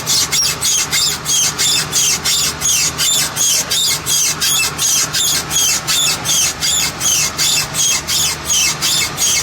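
2007 Chevy Express driveshaft universal joint squeaking in an even, rapid rhythm, several high chirps a second as the shaft turns: the sign of a universal joint going bad.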